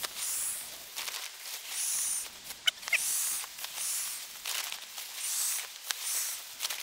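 Alpacka Raft Oryx packraft being inflated with a nylon pump sack: air rushes through the valve in a run of short hissing whooshes, about one a second, with a sharp crinkle of fabric between two and three seconds in.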